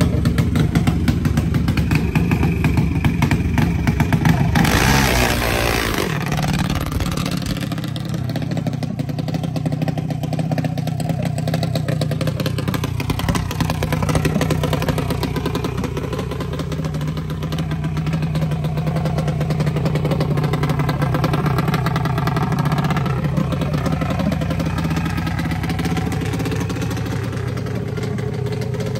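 Junior dragster's single-cylinder engine running steadily, with one brief hard rev about five seconds in whose pitch drops away, before settling back to a steady run.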